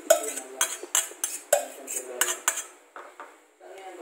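Metal spoon clinking and scraping against a stainless steel pot while the cooked vinegar dip is scraped out into a bowl. There is a quick run of sharp clinks for about two and a half seconds, then it goes quieter near the end.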